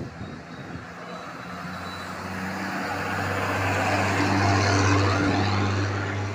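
A bus drives past close by, its engine and tyre noise swelling to a peak about two thirds of the way through and then easing off, over a steady low engine hum.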